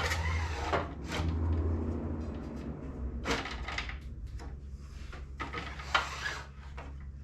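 Several separate knocks and clicks of the table saw's plastic blade guard assembly being handled and moved, over a steady low hum.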